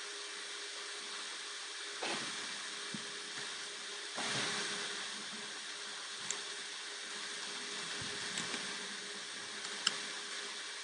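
Steady background hiss with a few faint clicks of computer keyboard keys being typed.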